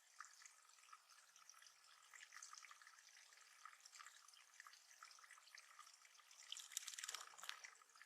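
Faint water trickling and dripping into a small bird pond, with a brief louder flurry of splashing about seven seconds in.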